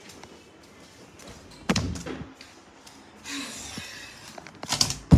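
Thuds and knocks from objects being handled and moved: one sharp knock about a second and a half in, a rustle, then a cluster of loud knocks near the end.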